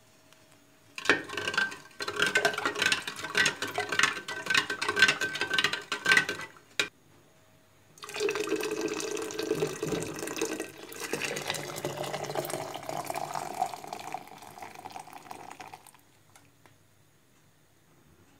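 Liquid pouring into a container in two pours. The first is splashy and full of small knocks; the second has a pitch that rises slowly as the container fills.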